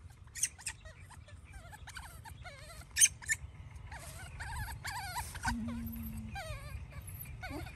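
Baby macaque monkey whimpering in a string of soft, short squeaks that rise and fall in pitch. A few sharp clicks cut in, the loudest about three seconds in.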